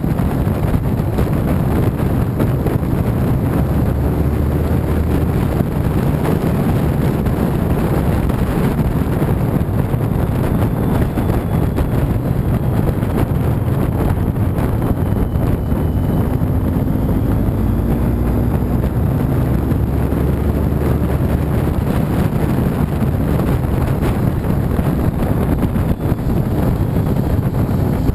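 Steady, loud wind buffeting the microphone of a camera on a moving motorcycle, with the engine running underneath. The engine note rises faintly twice.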